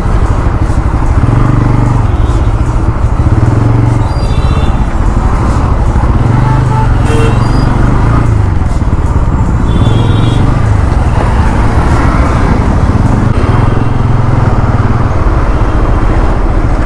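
Bajaj Pulsar NS160's single-cylinder engine running steadily as the motorcycle is ridden through heavy traffic. Brief horn toots from other vehicles sound a couple of times.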